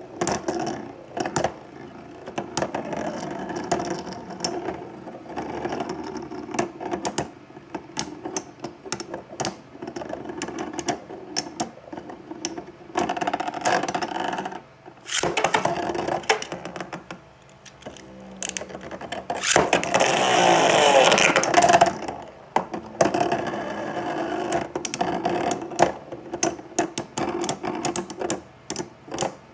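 Metal Fight Beyblade spinning tops whirring and grinding in a plastic stadium, with frequent sharp clacks as they hit each other. About two-thirds of the way through there is a louder rush of noise lasting a couple of seconds.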